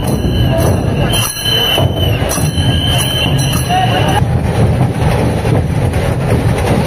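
Live procession din: a crowd with rhythmic drumming and clashing cymbals, strokes about every 0.6 s. A shrill high note is held over it for about the first four seconds.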